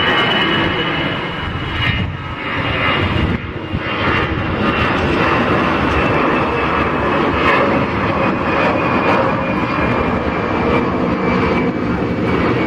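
Airbus A320-family twinjet climbing out after takeoff at climb thrust: a steady jet engine noise with a thin high fan whine running through it.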